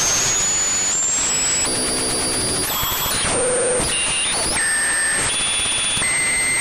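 Synthesized sci-fi radio interference: a dense static hiss with thin whistling tones that hold one pitch and then jump to another every half second to a second, with a few short warbles, like an odd radio being tuned.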